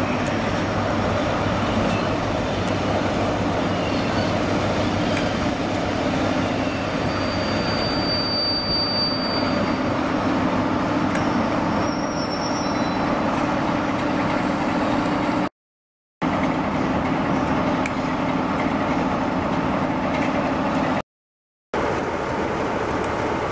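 Class 47 diesel locomotive's engine running with a steady drone as it hauls coaches into the platform. The sound cuts out twice briefly, and near the end a Class 43 HST power car runs past.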